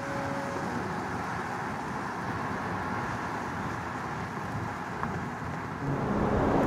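Steady rush of flowing water, growing louder about six seconds in.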